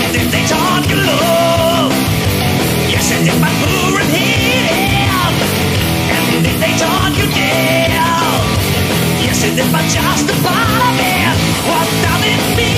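Speed/power metal song: loud electric guitars and a rock band with a singer's voice over them.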